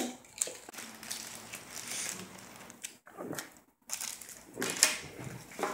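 Plastic wrapping and foil Pokémon booster packs crinkling as they are handled and unwrapped, in irregular rustles with a few sharp crackles near the end.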